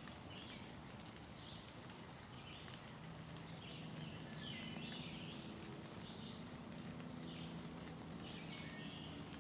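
Songbirds singing in the woods: short high chirping phrases repeating every second or so. A faint low steady hum comes in a few seconds in.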